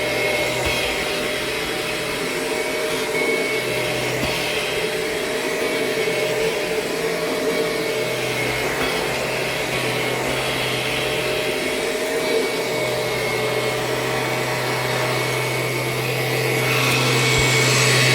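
A 2000 Kirby G6 upright vacuum with a G5 power nozzle running steadily, a motor hum and whine held at one pitch, with a noise the owner puts down to something in the power nozzle, whose drive is really tight. Near the end it grows louder and brighter.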